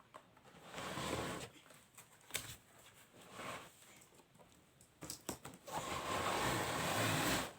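A cardboard toy box being opened and handled: rustling and scraping with a few sharp knocks, then a longer scraping slide near the end as the air hockey game is pulled out.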